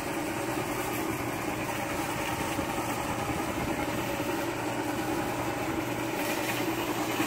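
Steady hum of a 1970s Carousel International train kiddie ride's electric drive motor running.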